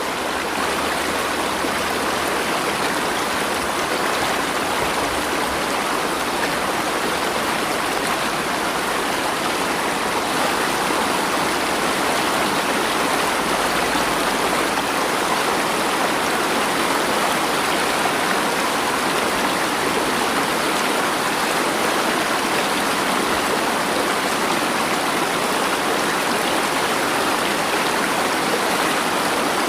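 Flowing water of a stream, a steady, even sound.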